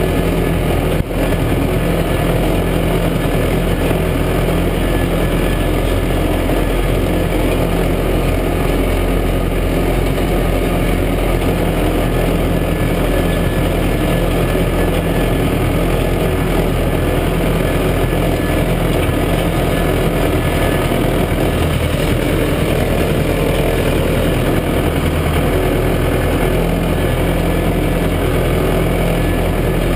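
Massey Ferguson 590 tractor's four-cylinder Perkins diesel running steadily as the tractor drives along, heard from inside its open, windowless cab.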